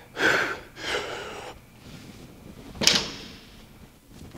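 Two hard, noisy exhales from a weightlifter straining through a heavy lift, then a single sharp knock about three seconds in.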